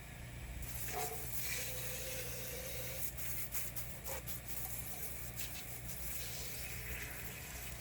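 Water hissing and splashing, starting about half a second in, with scattered short splashes over a steady low hum.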